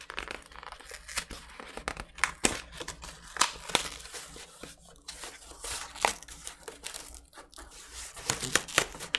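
Corrugated cardboard record mailer being torn open by hand: irregular ripping and crackling, with sharp tears scattered through and a quick cluster near the end.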